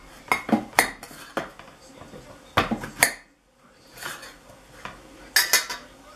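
Kitchen knife clinking against an enamel bowl as an apple is cut up in it: a string of sharp, separate clinks, with a quick cluster of them near the end.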